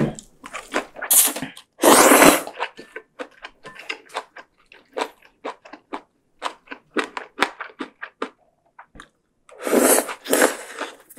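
A person slurping rice noodles from a spicy noodle soup in loud bursts, about two seconds in and again near the end, with wet chewing and mouth clicks in between.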